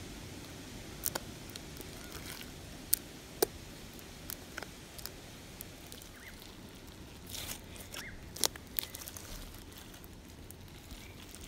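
Foam-bead slime worked by fingers in a plastic tub: scattered sharp clicks and crackles as it is poked and squeezed, with a few louder pops.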